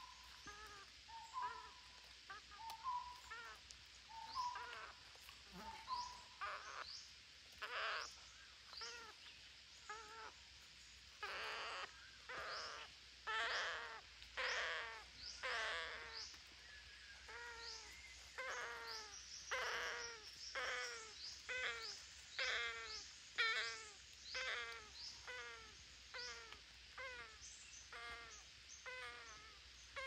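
A flock of green parakeets calling: short calls repeated about twice a second, growing louder and overlapping in the middle.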